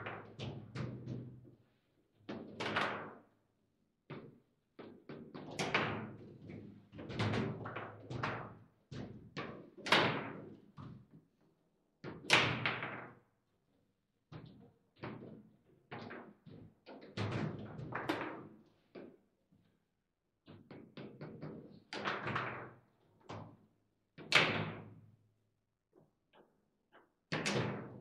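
Table football in play: a string of sharp, irregular knocks and clacks as the ball is struck by the rod figures and hits the table, with the rods banging as they are worked, some hits much louder than others.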